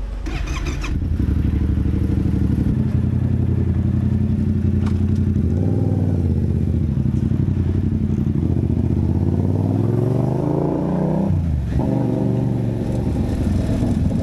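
Motorcycle engine running under way as it accelerates through the gears. The pitch climbs steadily over several seconds, drops sharply at a gear change about three-quarters of the way through, then climbs again.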